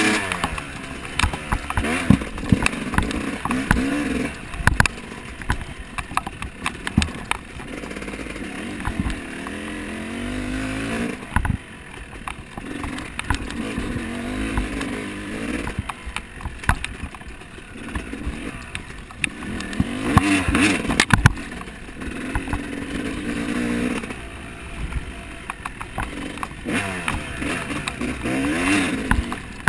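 Off-road dirt bike engine revving up and down over and over as it is ridden, the pitch climbing and dropping every few seconds, with clattering knocks from the bike over rough ground.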